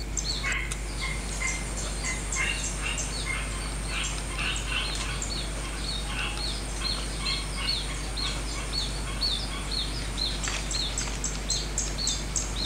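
Small birds chirping, many short quick calls repeating and overlapping throughout, over a steady high-pitched hiss.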